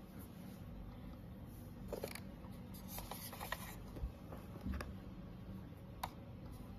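Faint handling noise from a small plastic Wi-Fi camera being picked up and turned over: a few light clicks and short rustles over a steady low background.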